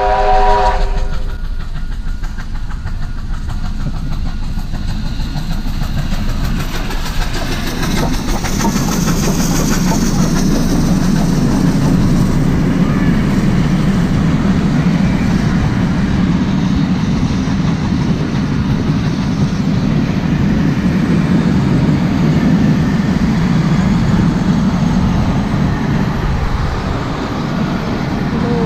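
Steam locomotive 3801, a 4-6-2 Pacific, sounds its whistle, which ends about a second in. Then the locomotive and its train of carriages roll past with a loud, steady rumble and wheels clicking over the rail joints.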